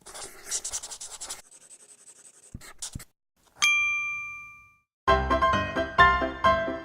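Scratchy rubbing noise, then two sharp clicks and a single bell-like ding that rings out and dies away over about a second. Music with a steady piano-like beat starts about five seconds in.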